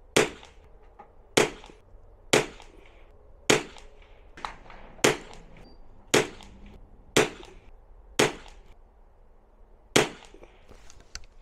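A string of about nine .22 rimfire target rifle shots, each a sharp crack, roughly a second apart, with a few fainter clicks between them.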